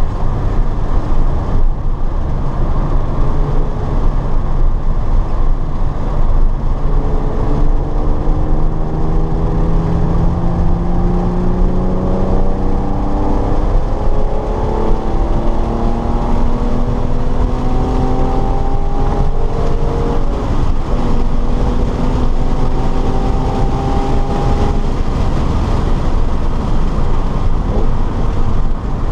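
Car on a race track heard from on board: the engine note climbs in pitch and drops back several times, as it would through upshifts under acceleration, over heavy rumbling wind and road noise.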